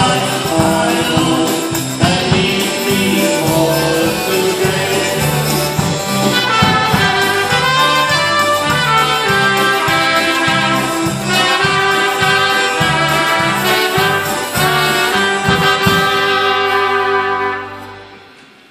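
Live polka band: trumpet leading over accordions and a steady oom-pah bass beat. Near the end the band closes on a held chord that dies away.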